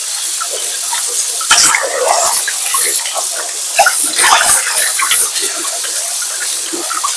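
Tap water running and splashing into a sink, broken by irregular louder splashes and sloshing as things are handled under the stream.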